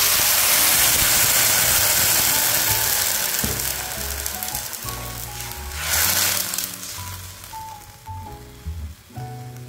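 Water poured into a hot oiled wok of frying garlic, shallots and chillies sizzles loudly, dying away over a few seconds, with a second short burst of sizzling about six seconds in. Background music plays underneath.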